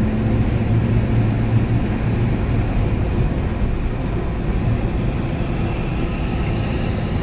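Steady cabin noise of a moving vehicle: an even low engine and road rumble with a hum underneath.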